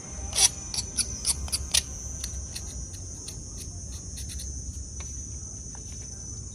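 Steady high-pitched insect trill, typical of crickets, with a scattering of sharp clicks and taps over it, densest in the first two seconds and loudest about half a second in.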